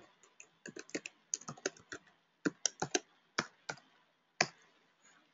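Typing on a computer keyboard: an irregular run of key clicks that stops about four and a half seconds in.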